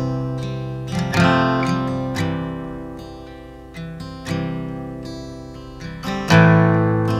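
Background music: acoustic guitar chords strummed and left to ring out and fade, with fresh strums every second or two.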